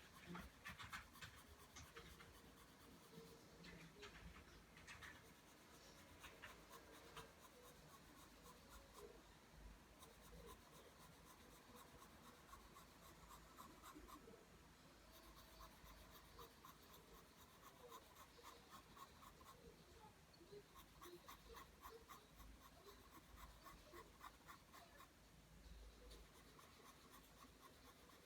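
Faint pencil scratching on paper as lines are drawn, in runs of quick, repeated strokes.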